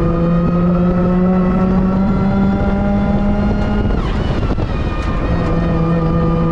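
Supercharged Mazda MX-5 NB four-cylinder engine pulling under load, its pitch rising slowly for about four seconds. The note then breaks off briefly and comes back at lower revs near the end.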